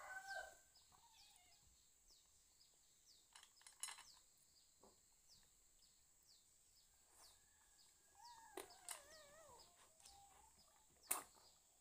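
Near-quiet background with the end of a rooster's crow right at the start, faint repeated chirps, and a wavering bird call about eight seconds in. A few sharp clicks, the loudest a second before the end.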